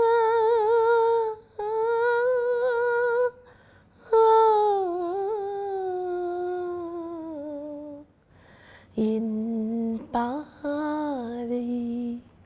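A woman singing unaccompanied, a slow song in Tamil. She holds long notes with vibrato, sings a long phrase that slides down in pitch, then sings lower words near the end.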